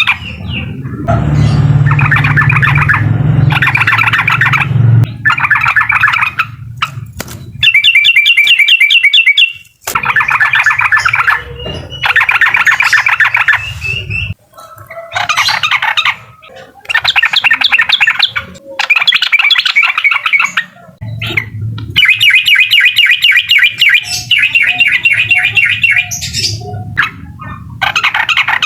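Yellow-vented bulbul (trucukan) singing its fast 'uklik' song. It comes in loud bursts of rapid repeated chattering notes, each a few seconds long, with short pauses between them. A low rumble lies under the first few seconds.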